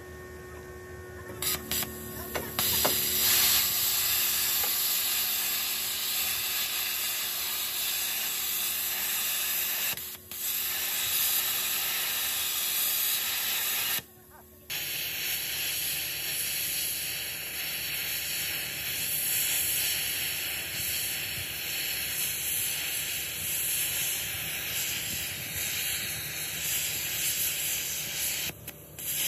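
Arc cutting torch cutting into steel, a loud steady hiss with the crackle of the arc, stopping briefly a few times as the trigger is released.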